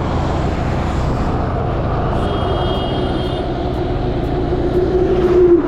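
Motorcycle engine running on the move, with wind rushing over the microphone. A brief high tone sounds about two seconds in. Near the end the engine note swells, then drops as the bike slows.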